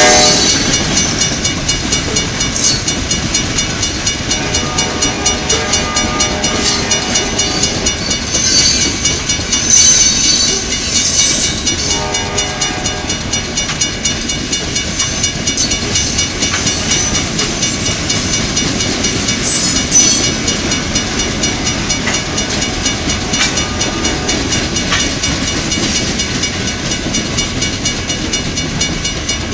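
Loaded coal hopper cars rolling past over a grade crossing: a steady clatter of wheels on the rail joints, with several louder bangs, about 8 to 11 seconds in and again near 20 seconds. A horn-like note cuts off right at the start, and a crossing bell rings under the clatter.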